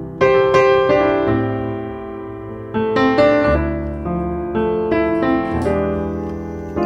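Background piano music: chords struck every second or two, each left to ring and fade away.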